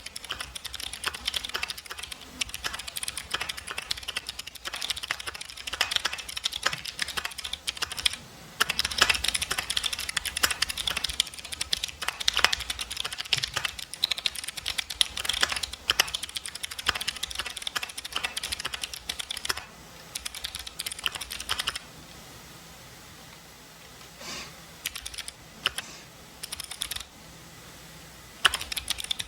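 Typing on a mechanical keyboard with clicky jade switches: a fast, steady clickety clack of keystrokes. About two-thirds through it thins to a few scattered keystrokes, then fast typing picks up again near the end.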